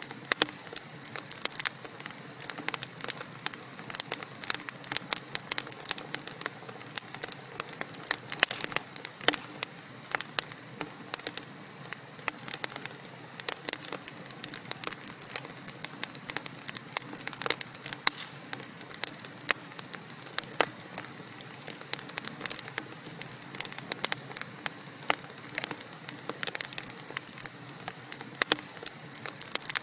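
Wood fire burning in a fireplace: a steady hiss with many irregular sharp crackles and pops from the burning logs, some much louder than others.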